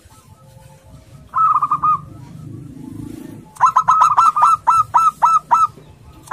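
Zebra dove (local perkutut) cooing. About a second and a half in comes a quick run of notes, and a couple of seconds later a longer series of about nine spaced, ringing coos.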